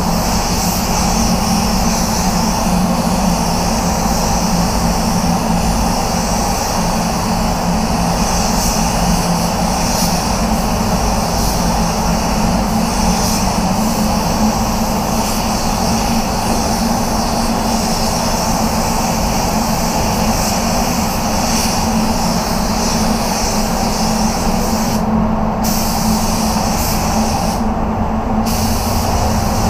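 Compressed-air spray gun hissing steadily over the constant drone of a paint booth's extraction fans. The high hiss cuts out briefly twice near the end.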